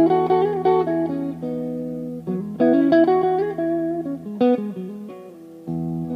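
2001 Japanese-made Greco WS-STD electric guitar played clean. Ringing chords mix with picked single-note fills and a bent, wavering note. The playing thins out a little past the middle, then a chord is struck and left ringing near the end.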